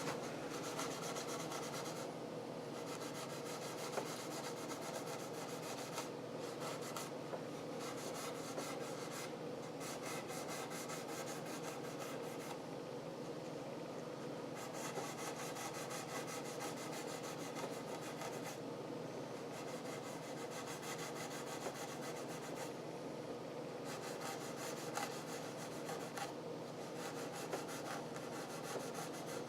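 Green abrasive scouring pad rubbed back and forth over wood in quick, steady strokes, lightly scrubbing white chrome-polish residue off the surface without sanding into the finish.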